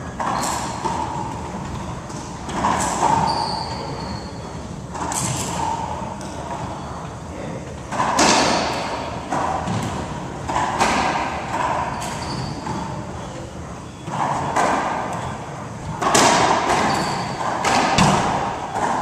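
Racquetball rally: the hollow rubber ball smacking off racquets and the court walls in irregular hits every two to three seconds, each ringing out in the enclosed court's echo, with a few short high squeaks in between.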